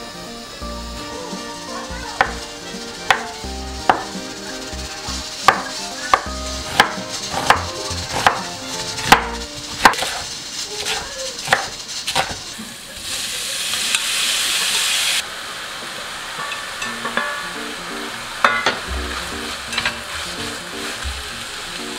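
Chef's knife slicing green onions on a wooden cutting board, sharp chops about once a second. Then a burst of sizzling for about two seconds, and stir-frying of shiitake mushrooms and vegetables in a hot stainless steel pan, with chopsticks clicking against the pan.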